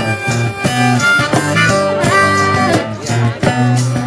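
Acoustic blues band playing between sung lines: harmonica played through a microphone, holding and bending notes over acoustic guitar and a cajon beat.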